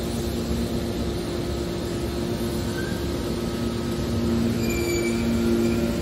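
Horizontal hydraulic scrap metal baler running: the steady hum of its hydraulic pump and motor, with a couple of short high-pitched squeals near the end.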